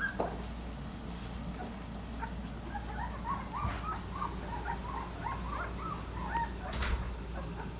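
Bullmastiff puppies about three weeks old whimpering: a string of short, high whines, several a second, starting about two seconds in.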